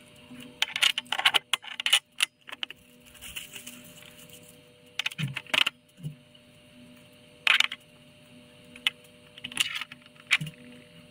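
Small metal plumbing fittings clinking and clicking as they are handled, turned together and set down on a tabletop. The clicks come in short clusters, the loudest about a second in, with others around five, seven and a half and nine and a half seconds.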